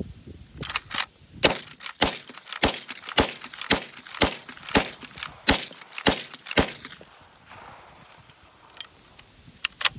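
Uberti 1873 Winchester Short Rifle, a lever-action replica, fired rapidly with .38 Special rounds: about ten shots roughly half a second apart, the lever clacking between them. A few lighter clicks follow near the end.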